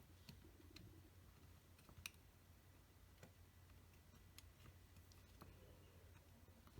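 Near silence with faint, scattered clicks of small plastic model-kit parts being handled and pressed into place, the clearest about two seconds in, over a low steady hum.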